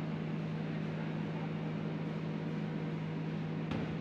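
Besan (gram flour) milling plant running: a steady machine hum with a constant low drone. One short knock comes near the end.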